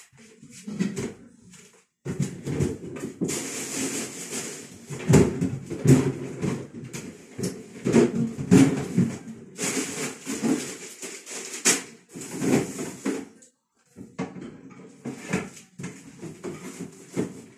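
Kitchen handling noise: rustling with many irregular knocks and clatters, stopping briefly near the end before starting again.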